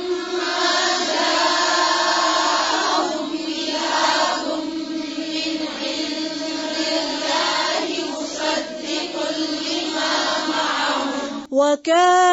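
Quranic verse chanted by several voices at once, blending into a blurred, choir-like sound held on a steady pitch. A single clear female reciting voice takes over near the end.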